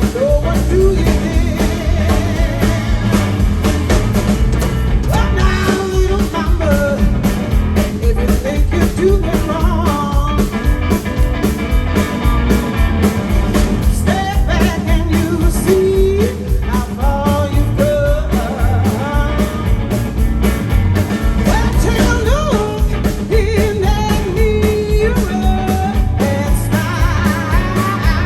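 Live blues band playing with a steady drum beat and bass, and a lead line bending in pitch over it.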